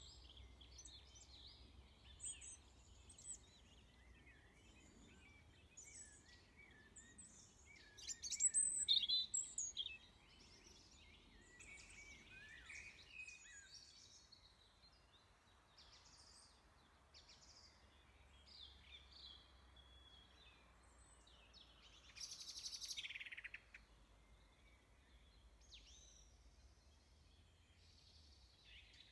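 Small birds chirping and twittering, with two louder bursts of song, about eight seconds in and again around twenty-two seconds, over faint background hum.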